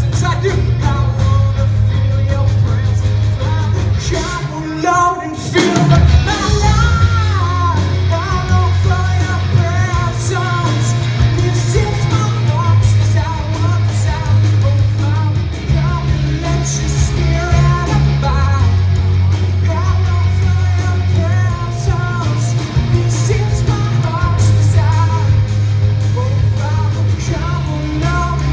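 Live rock band playing: a male lead vocalist singing over two electric guitars, bass guitar and drums, with heavy bass throughout. The low end drops out briefly about five seconds in, then the full band comes back in.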